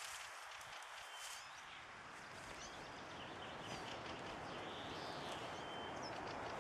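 Outdoor ambience: a steady background hiss with faint, scattered bird chirps.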